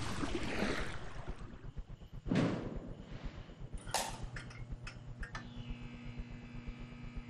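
Wind and water noise from a boat fades out, followed by a brief whoosh, then a sharp click and a few lighter clicks, and then a faint steady hum of room tone.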